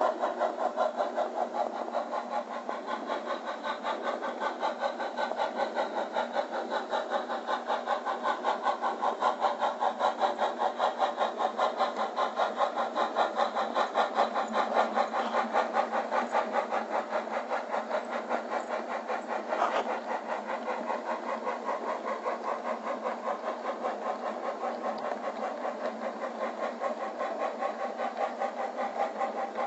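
Sound-equipped On30 model steam locomotive chuffing steadily from its onboard speaker: a fast, even run of exhaust beats, thin with no deep bass. There is a single sharp click about twenty seconds in.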